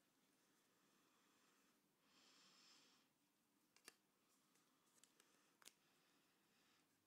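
Near silence: faint rustling of red craft paper being handled and folded by hand, with two light taps, one about four seconds in and one near six seconds.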